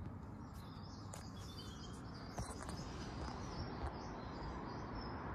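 Faint evening ambience: a steady hiss of background noise with a few distant bird chirps in the first couple of seconds.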